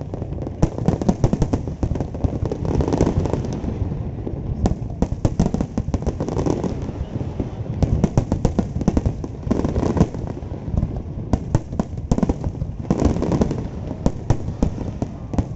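Fireworks display: a dense, continuous barrage of bangs and crackling, with no pauses, swelling in waves every few seconds.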